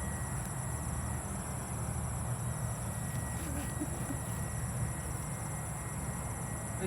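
Insects chirping steadily: a high continuous buzz with a fast pulsing trill under it, over a steady low rumble.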